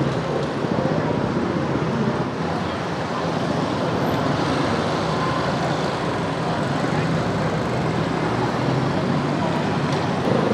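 Street traffic ambience: motorbike and car engines running steadily, with indistinct voices mixed in.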